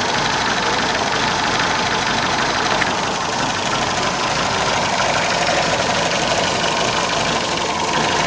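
MG car engine idling with a misfire, running steadily throughout.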